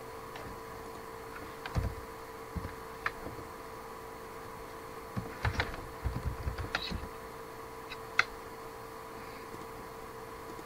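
Computer keyboard and mouse clicks, scattered taps with a quick run of keystrokes a little past halfway and one sharp click after it, over a faint steady electrical hum.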